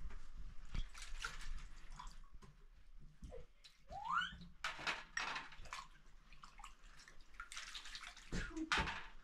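Water splashing and sloshing in a metal tray as something is washed by hand, in irregular short bursts with light scraping against the metal. A short rising squeal about four seconds in.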